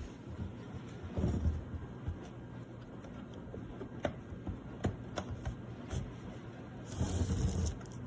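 Handling noise: two stretches of rustling and bumping, about a second in and near the end, and a few sharp clicks in between, over a steady low hum.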